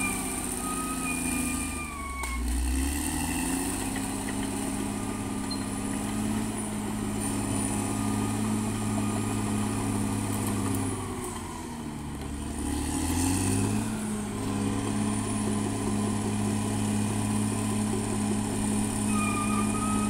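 Caterpillar D6R XL crawler bulldozer's diesel engine working steadily. Its revs drop and climb back up twice, about two seconds in and again around twelve seconds, as the dozer shifts between pushing uphill and backing down. A thin high whine comes and goes near the start and end.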